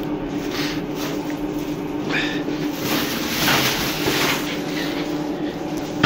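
A plastic carrier bag holding stones rustling as it is opened and carried, over a steady background hum.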